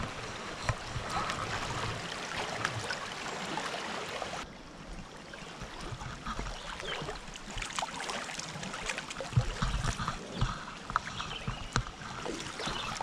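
Shallow river water running and lapping against an inflatable river tube close to the microphone, with many small splashes and ticks. The brighter hiss cuts off abruptly about four and a half seconds in.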